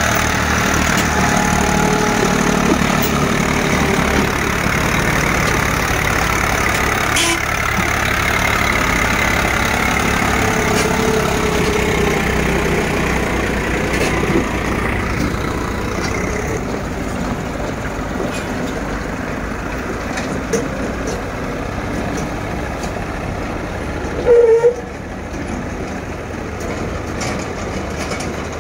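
Diesel farm tractor engine running under load as it hauls a loaded trailer up a steep dirt track, steady at first and gradually fading as it moves away. A brief, louder pitched sound breaks in about 24 seconds in.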